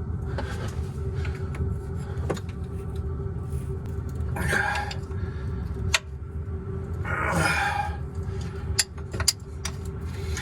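Hand wrench working an exhaust manifold bolt on a Detroit Diesel 6V92: a few scattered sharp metal clicks, over a steady low rumble, with two short hissy rushes in the middle.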